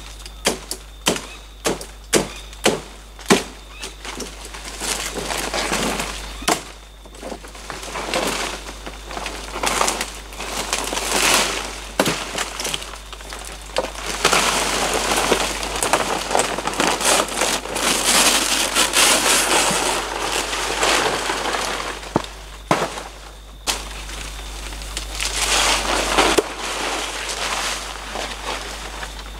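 Palm fronds being cut and pulled by hand: a run of sharp cracks, about two a second, for the first few seconds. Then long stretches of rustling and crackling leaves as the fronds are tugged and dragged through the undergrowth.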